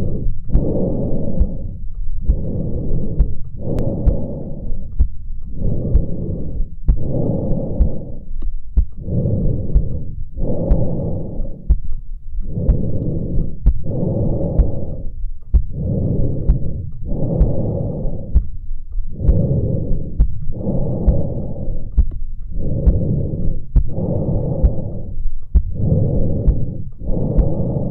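Breath sounds picked up through a Bluetooth wireless precordial stethoscope: regular rushes of airflow, one every second or two, with short pauses between them.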